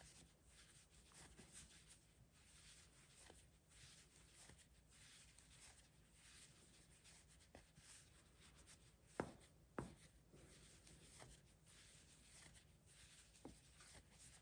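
Near silence with the faint soft rubbing of a metal crochet hook drawing velvet yarn through stitches, and two small clicks about half a second apart past the middle.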